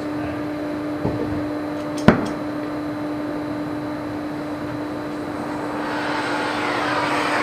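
A torch reheating a battery cable terminal to melt solder: a sharp click just after two seconds in, then the flame's hiss building from about six seconds in, over a steady hum.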